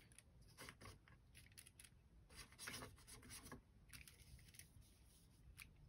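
Faint, irregular scratching of a paintbrush stroking watercolour paint over crinkled aluminium foil.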